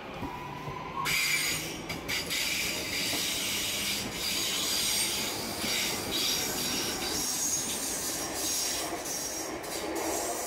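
Passenger train passing on a tight curve, its wheels squealing in several high, steady tones from about a second in, over the rumble and clatter of wheels on the rails.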